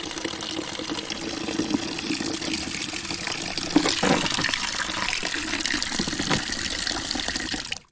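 Water running steadily from an outdoor faucet and splashing, with a few louder splashes midway; the flow cuts off suddenly near the end.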